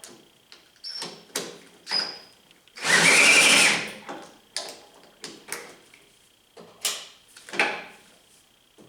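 Cordless drill, fitted to the starter, spinning the half-scale tractor's engine over on choke in one loud burst of about a second, about three seconds in, without the engine starting. Scattered clicks and knocks from handling come before and after it.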